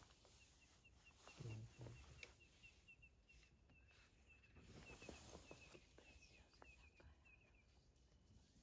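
Near silence in the open bush: a faint, rapid run of short high chirps, about three a second, from a small calling animal, with a brief low murmur about a second and a half in.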